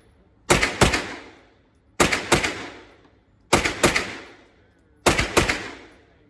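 Gunshots fired as double taps: four quick pairs of shots, about a second and a half between pairs, each pair trailing off in echo.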